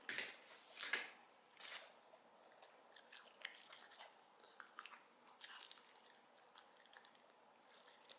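Small Shiba Inu biting and chewing a piece of dried sweet potato held in fingers: irregular soft chewing clicks, with a few louder ones in the first two seconds.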